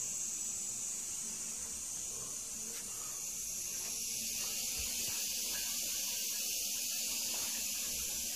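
Steady high hiss of water refilling a high-level toilet cistern through its inlet valve.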